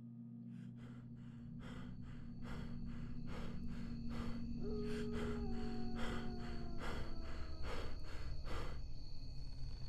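Rapid, heavy panting breaths, about three a second, growing louder over the first few seconds, over a low sustained drone.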